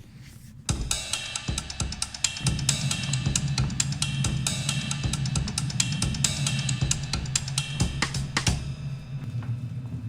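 Background music: a drum solo on a full drum kit, fast kick, snare and cymbal hits, starting about a second in, with a steady low bass line joining soon after.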